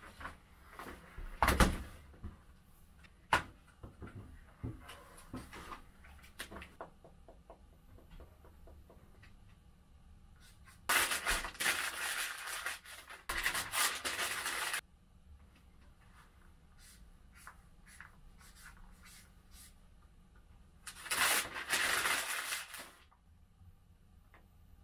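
Sheets of legal-pad paper being crumpled by hand, in two long rustling spells about eleven and twenty-one seconds in. Before them, sharp clicks and a run of small ticks and taps from the marker and paper on the desk.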